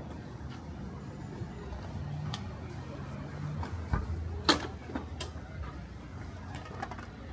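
Street traffic: road vehicles passing with a steady low rumble, and a couple of sharp clicks a little past the middle.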